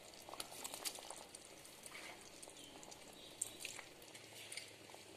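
Thick tamarind fish gravy simmering in a clay pot: faint bubbling with scattered small pops and crackles, a few sharper pops among them.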